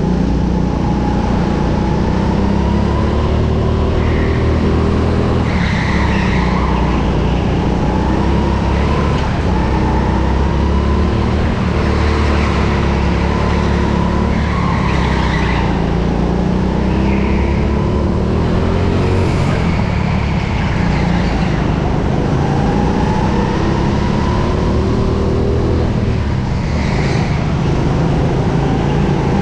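Go-kart engine heard from on board, running hard with its pitch climbing and falling again and again as the kart accelerates and brakes, and tyres squealing briefly several times.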